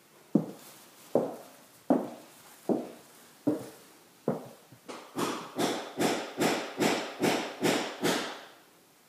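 Footsteps on bare wooden floorboards: slow, even steps a little over one a second, then from about five seconds in a quicker run of sharper, louder steps, about two or three a second.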